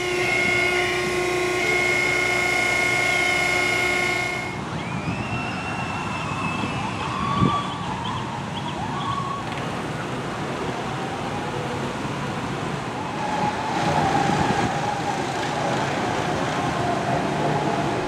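Steady whine from the motor of a steel track bending machine, which stops abruptly about four and a half seconds in. After that comes general outdoor construction-site noise with faint wavering tones.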